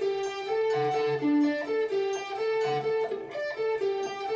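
Electric guitar picking a repeating single-note melodic riff, the notes following each other evenly with a lower note coming back about every two seconds.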